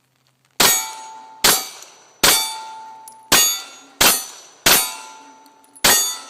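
Glock 17 9mm pistol fired seven times at a steady pace, under a second apart, each shot followed by the ringing clang of a hit steel plate.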